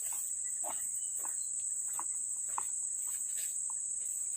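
Steady high-pitched chorus of insects, with a scattered handful of short clicks and chirps through it.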